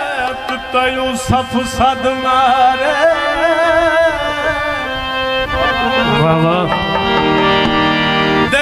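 Live South Asian folk music: a harmonium plays a melody under a man's wavering sung line, with drum beats. From about six seconds in, the harmonium holds steady chords.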